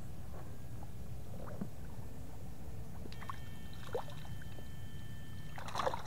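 Water sloshing and splashing over a steady low rumble, with a few short splashes, the loudest near the end. A thin, steady high-pitched whine is missing at first and comes back about three seconds in.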